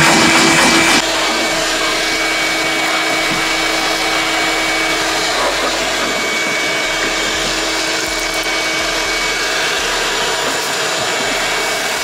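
Shop vacuum running steadily, its hose nozzle sucking up dirt and dead leaves from the boat's carpet and floor hatch. The sound gets a little quieter about a second in.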